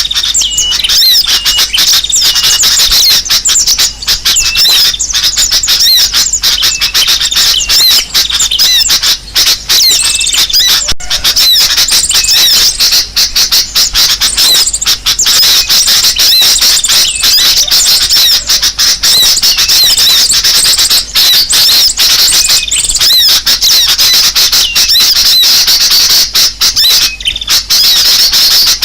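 A dense chorus of small birds calling all at once: high, squeaky, chattering calls overlapping without a break. It is a bird-lure (pikat) recording of agitated, noisy birds, used to draw wild birds in.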